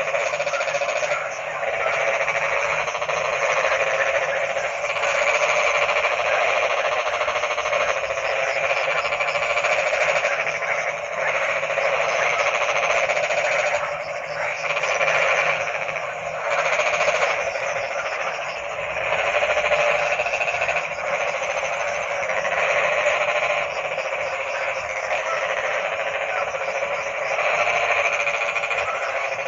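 Dense chorus of many frogs croaking at once, a continuous wall of overlapping calls that swells and dips slightly.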